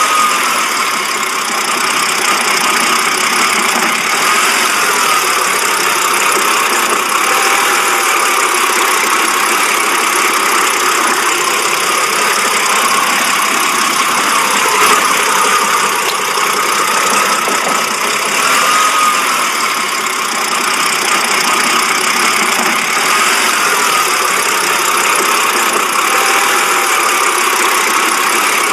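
BMW car engine idling roughly, running steadily with no revving.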